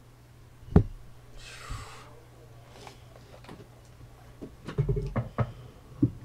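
Knocks and bumps of objects handled on a desk: one sharp knock about a second in, then a cluster of small knocks and taps near the end, over a steady low electrical hum.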